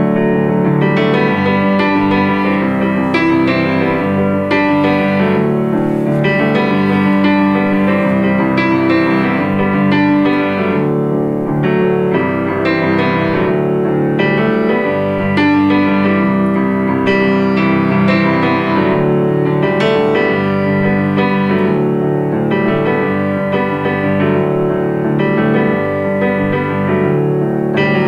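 Piano-led music played back through small homemade ceramic speakers with 3-inch drivers, picked up by a microphone in the room.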